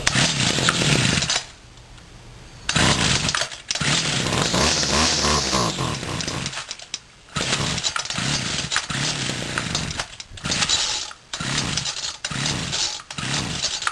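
Homelite string trimmer's small two-stroke engine starting on choke and running unevenly, its sound dropping away several times and picking up again. The owner takes the rough running as a sign the carburetor needs retuning.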